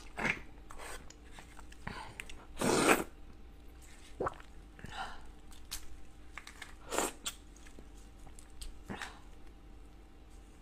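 Close-up mouth and hand sounds of eating raw red shrimp: a few short wet sucking and biting sounds at the shrimp head, the loudest about three seconds in and another about seven seconds in, with soft crackle of the shell being pulled apart and peeled between them.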